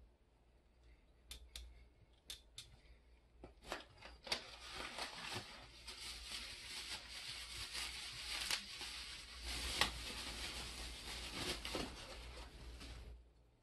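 A few light clicks and knocks of parts being handled, then a clear plastic bag crinkling and rustling steadily as it is handled from about four seconds in, stopping shortly before the end.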